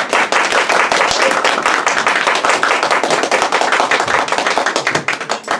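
Audience applauding: many hands clapping densely, thinning out near the end.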